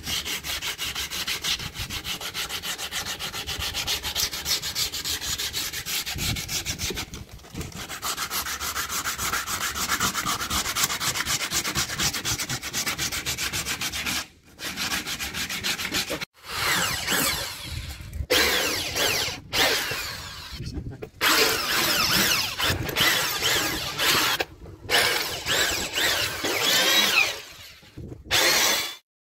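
Sandpaper rubbed by hand along the edge of a plywood board in fast back-and-forth strokes, rounding off its edges and corners. It comes in several stretches broken by short pauses.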